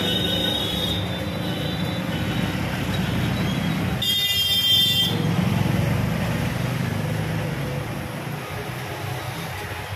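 Street traffic with a steady low engine rumble. About four seconds in, a vehicle horn honks for about a second.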